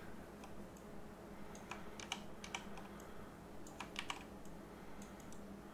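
Faint, scattered clicking at a computer, coming in a few small clusters, over a low steady hum.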